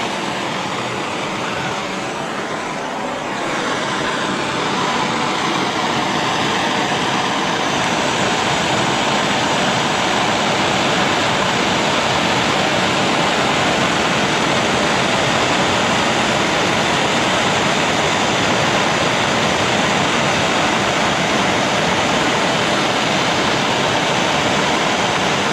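Steady rushing hiss of a heating tool played over paint-coated wrenches to cure the coating, a little louder from about three seconds in.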